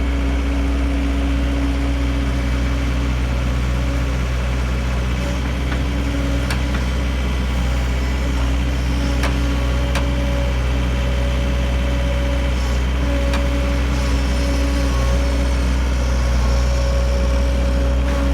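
Diesel engine of a 2005 John Deere CT322 skid steer running steadily at idle, with a few brief sharp clicks.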